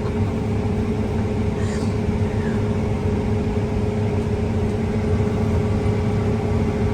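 A vehicle engine runs steadily, heard from inside the cab as a constant low drone with a steady hum.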